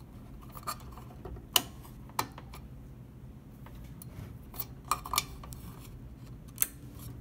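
RJ45 Ethernet plug pushed into an Antminer A3's Ethernet port and the cable handled: a few sharp plastic clicks and taps, the loudest about one and a half seconds in, over a low steady hum.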